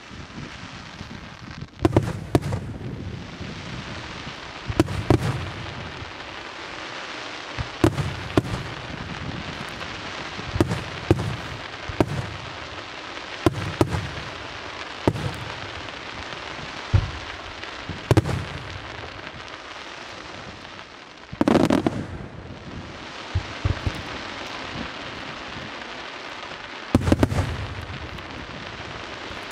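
Senatore Fireworks aerial shells bursting in a steady series, a sharp bang every second or two over a continuous hiss. A heavier, longer burst comes about three-quarters of the way through, and another strong one near the end.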